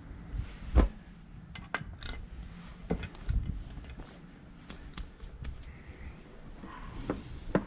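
Scattered light knocks and clicks of the water heater's plastic and metal parts being handled and worked on during disassembly, over a low steady hum; the sharpest knock comes just under a second in.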